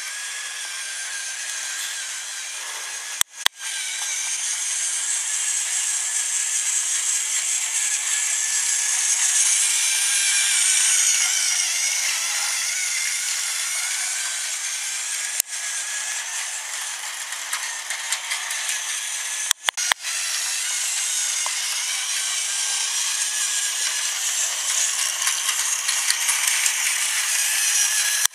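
Battery-powered Tomy toy train running on plastic track: a steady whirring of its small motor and gears with the rattle of wheels on the track, swelling and fading as it moves around the layout. It cuts out briefly three times.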